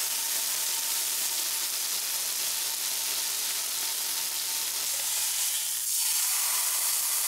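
Ishigaki beef steak sizzling steadily as it cooks, getting a little louder about six seconds in.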